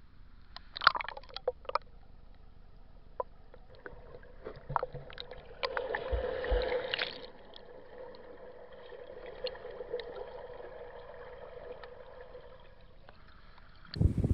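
Muffled water sounds picked up by a budget action camera in its waterproof housing in a swimming pool: sloshing, with scattered clicks of splashes and a louder splashing stretch about six seconds in. Near the end it cuts to a louder, clearer sound.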